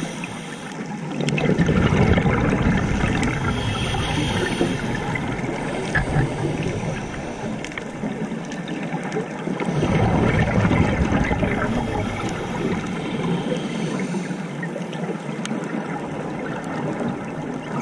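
Scuba diver breathing through a regulator underwater: long stretches of exhaled bubbles rumbling and gurgling, three in all, with quieter pauses between them.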